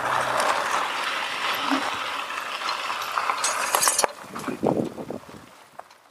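Electric trike riding over a rough gravel track: tyres crunching on stones and the frame rattling and clicking. A low steady hum cuts off about half a second in. The noise turns patchy and fades away near the end as the trike slows to a stop.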